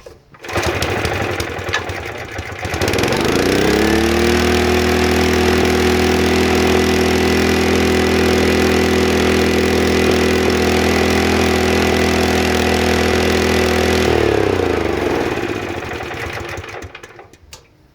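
Lawn aerator's small gasoline engine pull-started: it catches at once and runs unevenly, then speeds up to a steady run about three seconds in, showing the cleaned carburetor now lets it start. Near the end it slows and winds down to a stop.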